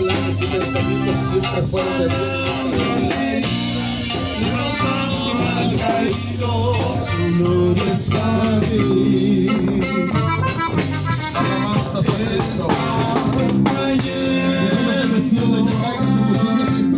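Live band music: a man singing over guitar and electric bass, with a steady beat.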